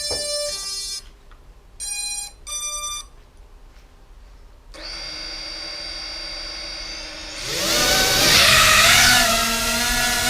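Music stops about a second in and two short electronic beeps follow. Near the middle a 4-inch FPV quadcopter's motors start spinning with a steady whine. Near the end they throttle up, rising in pitch into loud motor and propeller noise.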